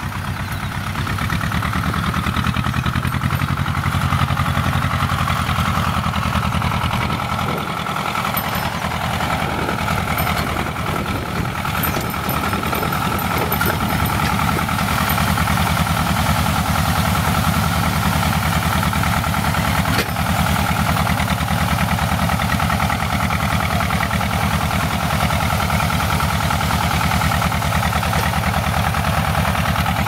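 Tractor engine running steadily as it pulls a heavy bundle of cut branches across a field.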